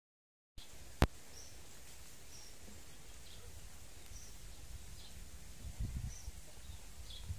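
Rural outdoor ambience: small birds giving short high chirps roughly once a second over a steady low rumble, with a single sharp click about a second in and some low buffeting near the end.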